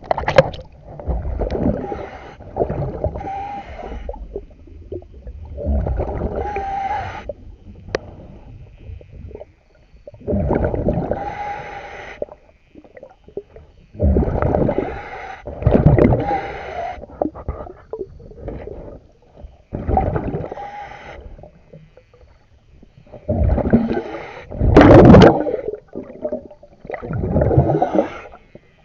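Scuba diver breathing through a regulator underwater: rushing breaths and bubbling exhalations in swells every three to five seconds, the loudest about three quarters of the way in.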